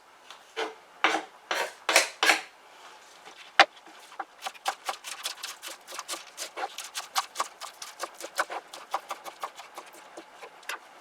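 Onions being trimmed and cut with a blade: a few loud cuts, a sharp click, then a quick run of short cuts about four or five a second.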